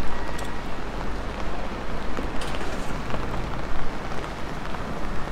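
Steady rain falling on a city street: an even hiss with a few light ticks of drops.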